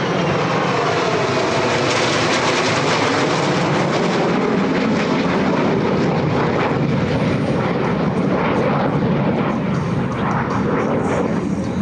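A pair of F-35C Lightning II fighters, each with a single Pratt & Whitney F135 turbofan, roaring past in close formation: a loud, steady jet roar whose tone sweeps down over the first few seconds as they go by.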